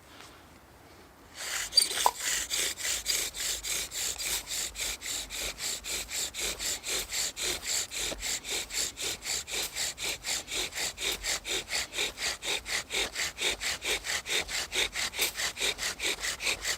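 Bow drill running: the wooden spindle rasping in the hearth board with each quick back-and-forth stroke of the bow, about four strokes a second in a steady rhythm, starting about a second in. This is the drilling run that raises an ember.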